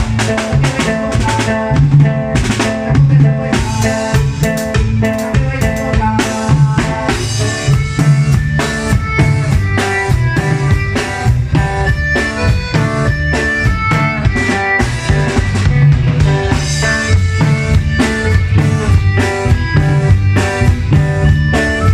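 Norteño band playing an instrumental passage of a cumbia, with drum kit (bass drum, snare and rimshots) keeping a steady beat under bass and melody instruments.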